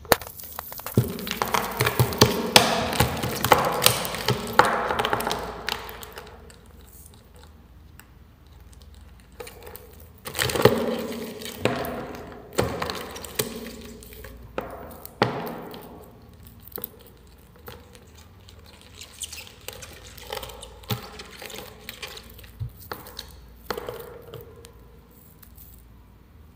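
Black scorpion and giant centipede grappling on loose substrate in a plastic tub: irregular crackling, scratching and clicking as legs, claws and shells scrape against the substrate, each other and the plastic. The scuffling is busiest in two bouts, from about a second to six seconds in and again from about ten to sixteen seconds in, with scattered clicks between.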